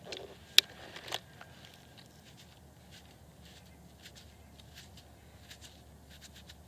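Handling a thin plastic water bottle while water is poured over a freshly dug coin, with two sharp clicks about half a second and a second in. Then faint scratchy rubbing as fingers clean dirt off the coin.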